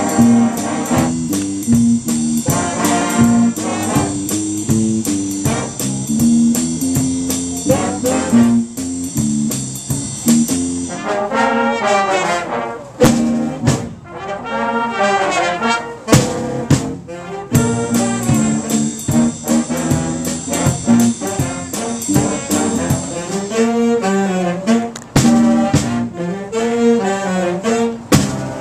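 Youth big band playing a jazz chart: saxophones, trumpets and trombones over a drum kit keeping time on the cymbals. The cymbal pattern drops back for a few seconds near the middle, leaving the horns, then returns.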